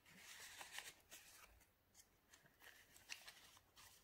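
Faint rustling of paper with a few light taps as the pages of a handmade junk journal are handled and turned.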